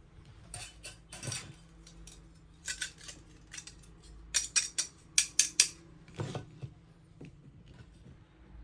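Small stainless-steel kitchen pieces clinking and tapping against each other as they are handled: quick clusters of sharp metallic clicks, with a duller knock about six seconds in.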